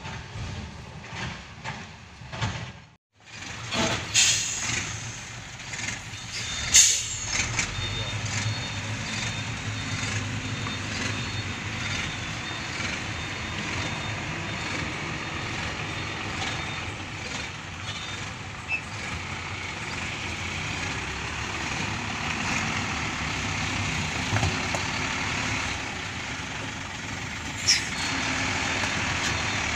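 Heavy diesel dump trucks running steadily, with a few sharp air-brake hisses: the loudest about seven seconds in and another near the end. The sound drops out completely for a moment about three seconds in.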